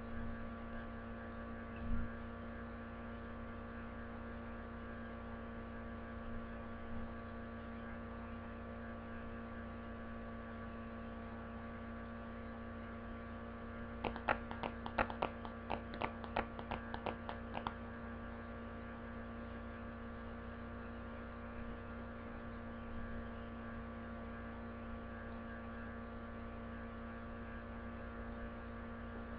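Steady electrical mains hum with many overtones, unchanging throughout. About halfway through comes a quick run of a dozen or so sharp clicks lasting three or four seconds, and near the start a single soft thump.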